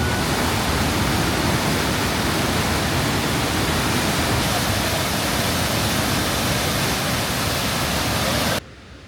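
Waterfall, its falling water making a loud, steady, even rush that cuts off suddenly near the end.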